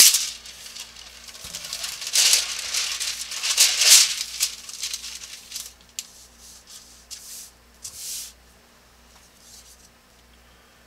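Thin tracing paper rustling and crinkling as a sheet is unrolled from a roll and spread over a drawing. Several loud rustles come in the first four seconds, then softer ones as the sheet is smoothed flat, dying away after about eight seconds.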